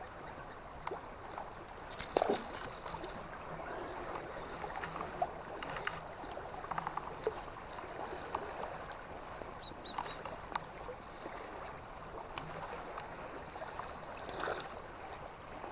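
River water flowing steadily, with scattered brief clicks and splashy ticks; the sharpest come about two seconds in and near the end.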